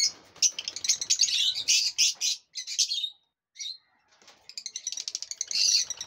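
Lovebirds chirping and chattering in rapid, high-pitched runs. They break off for about a second in the middle, then start again.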